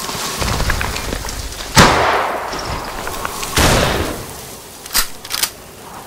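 Two gunshots about two seconds apart, each with a long echoing tail, followed by a few sharp clicks near the end.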